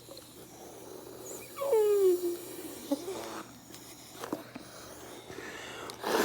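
Air blown through a drinking straw into a lump of glue slime: a breathy hiss with a short squeaky tone that falls in pitch about a second and a half in, then a few soft clicks.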